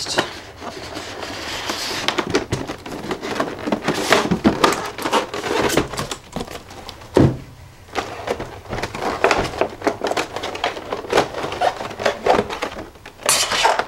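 Stiff clear plastic blister packaging and a cardboard box being handled: a run of clicking, crinkling plastic, with one dull thump about seven seconds in and a louder burst of plastic crackle near the end.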